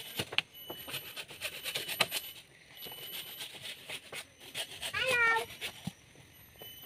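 Hand saw cutting into a bamboo pole: a run of rasping strokes, with a thin high insect whine in the background. A short high-pitched cry about five seconds in.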